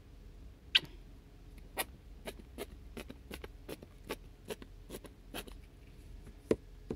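Sharp, irregular taps, roughly two a second, as a paint-loaded brush is tapped to flick a spatter of pink paint across a canvas.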